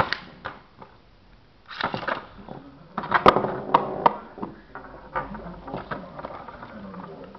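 Beyblade spinning tops clashing in a plastic stadium: irregular clicks and rattles, with the loudest cluster of hits about three seconds in and lighter ticking after it.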